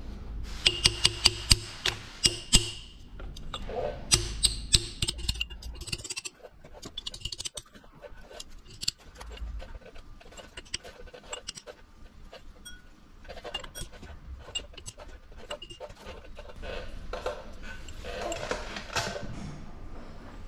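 A mallet striking an old wheel bearing race held against the engine's front cover, driving a new crankshaft oil seal into place: a quick run of about eight sharp blows with a metallic ring, then three more about four seconds in. After that only light tool and handling clicks.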